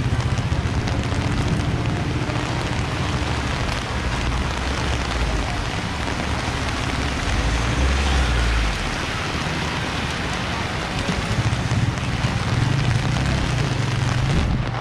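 Heavy rain falling and splashing on a wet street, a steady hiss, with the low rumble of passing traffic such as motorised tricycles and cars, swelling around the middle and again near the end.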